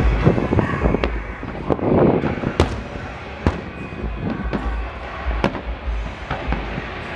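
Aerial fireworks shells bursting in a steady run of sharp bangs, about one or two a second, with crackling between them and a low rumble under it all.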